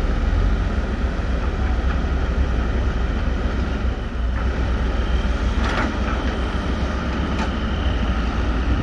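Heavy diesel engine running with a steady deep rumble. About five seconds in, a steady high whine joins it, which is taken for turbo whistle.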